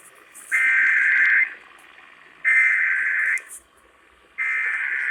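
Emergency Alert System SAME header sent over broadcast radio: three bursts of buzzy digital data warble, each about a second long and about a second apart, the third still running at the end. This data burst opens an EAS alert, here a Required Monthly Test.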